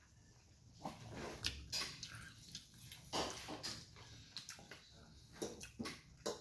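Scattered short clicks and crinkles of a plastic water bottle being picked up and handled.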